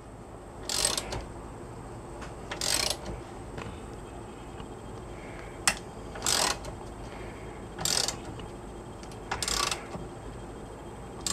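A socket ratchet turning the forcing screw of a jaw puller, clicking in short bursts about every second and a half as the handle swings back, with one sharp single click about halfway through. The puller is being tightened to press a stuck tapered tie rod end stud out of the steering knuckle.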